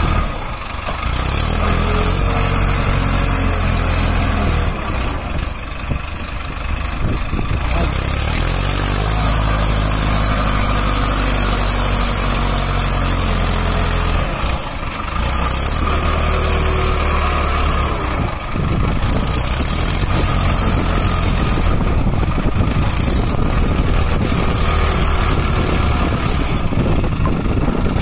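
Mahindra Arjun Ultra-1 555 DI tractor's four-cylinder 3054 cc diesel engine running under load, its revs rising and falling several times as the tractor is driven to get out of deep mud.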